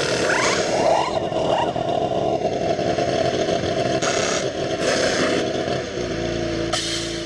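IndyCar pit stop: pneumatic wheel guns fire in several short bursts over the car's running engine while the tyres are changed.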